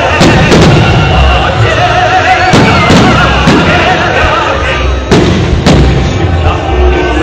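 Fireworks salute bursting overhead: sharp bangs every second or so, several close together, over a continuous low rumble of further bursts. Music plays at the same time.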